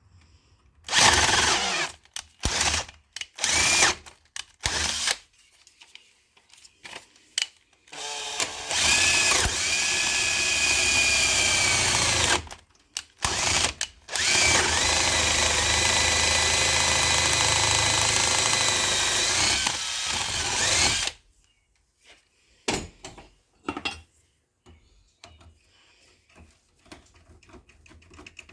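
Cordless power drill boring into the centre of a car's ignition lock cylinder: several short bursts, then two longer runs of a few seconds each, the whine dipping a little in pitch as the bit bites. The drill stops, and faint small clicks follow.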